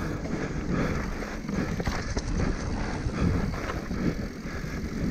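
Mountain bike ridden fast down a dirt singletrack: wind buffeting the microphone over the rush of knobby tyres on dirt, with the bike knocking and rattling over bumps.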